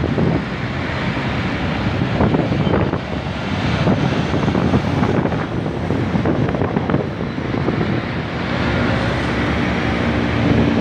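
Wind buffeting the microphone over a steady background rumble, with a low engine hum coming in near the end.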